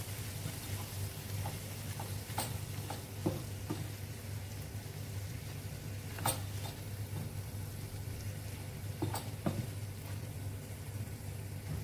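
Wooden spatula stirring diced tomatoes and minced beef in a frying pan, the food sizzling softly, with a few sharp knocks of the spatula against the pan, the clearest about six and nine seconds in. A steady low hum runs underneath.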